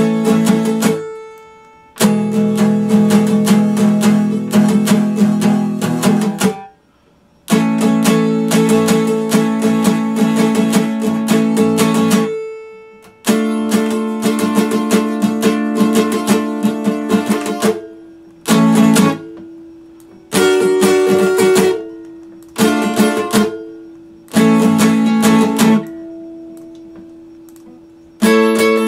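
Epiphone acoustic guitar strummed in fast, dense runs of chords that stop abruptly every few seconds, letting the last chord ring and fade. Toward the end the playing breaks into short chord stabs with gaps between them, then full strumming starts again.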